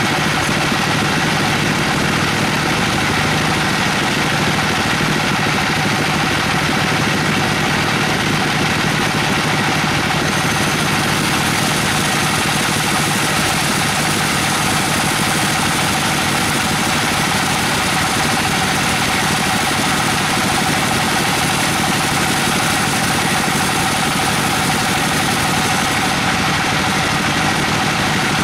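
Large sawmill bandsaw running steadily as its blade cuts lengthwise through an Albizia procera (weru) log. The high hiss grows a little stronger about ten seconds in.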